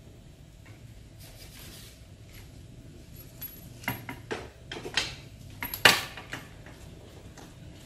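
Brass hose fittings clicking and clinking as a flexible hose is screwed onto a backpack sprayer's spray lance by hand: a scatter of short sharp clicks in the second half, the loudest about six seconds in, over soft handling noise.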